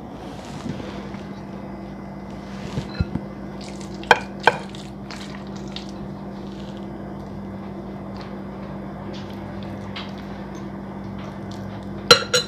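Steady low hum under light kitchen handling noise, with a couple of sharp clinks of a metal spoon against a glass mixing bowl about four seconds in and another near the end, as crab filling is scooped into pasta shells.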